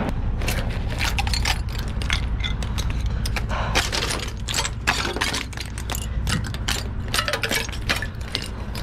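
Icicles being snapped off the side of a semi-trailer by gloved hands: a rapid, irregular run of sharp cracks and clinks of breaking ice, over a low steady hum.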